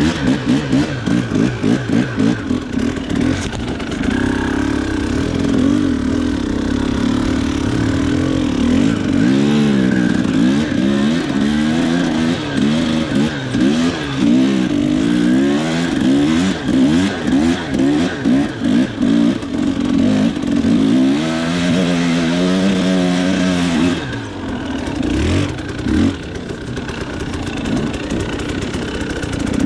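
Husqvarna TE300 two-stroke dirt bike engine revving up and down in quick bursts of throttle, with some clatter. Near the end it drops to a lower, quieter note for a couple of seconds before picking up again.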